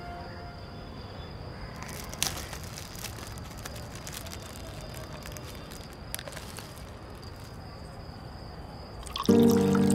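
Quiet evening ambience: a steady high cricket trill over a low background hiss, with a faint click about two seconds in. Background music comes in near the end.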